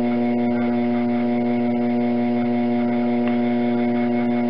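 Electric potter's wheel running at a steady speed, its motor giving off an even, unchanging hum with several fixed tones stacked above it.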